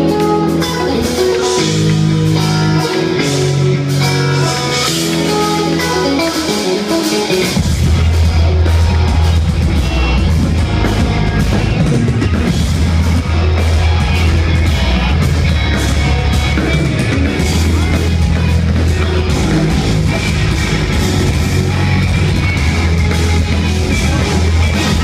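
Live instrumental progressive metal band, electric guitars, bass and drums, recorded loud from within the audience. About seven seconds in, a passage of ringing melodic guitar notes gives way to the full band playing heavy and dense, with pounding drums and deep low guitar.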